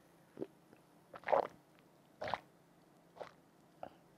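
A person gulping a carbonated lemon drink from a glass: about five swallows, roughly a second apart.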